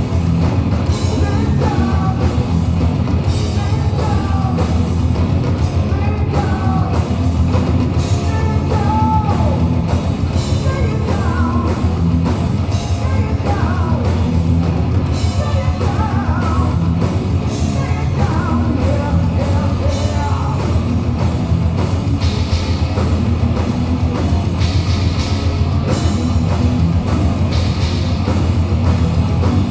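Live hard rock band playing loud and without a break: distorted electric guitar, electric bass and a drum kit, with a sung lead vocal over them.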